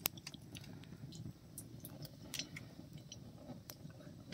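Faint, irregular crackling and ticking over a low steady rumble, from a wood cooking fire and the oil heating in the iron kadai set over it.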